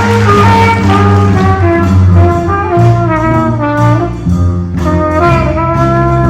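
Middle school band playing a holiday tune, brass melody over sustained low chords.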